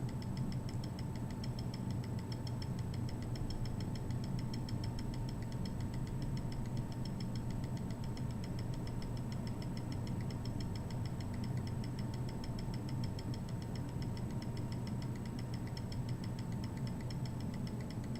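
Small electric air pump of an automatic blood pressure monitor running steadily as it inflates the cuff for a reading: an even hum with a fast, regular ticking.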